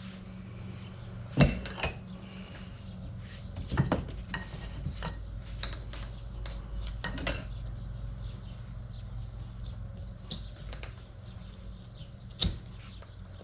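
Metal parts of a Jeep TJ U-joint clinking and knocking as a bearing cup is worked into the yoke by hand. There are a few sharp clinks, about four seconds apart, among lighter ticks, over a low steady hum.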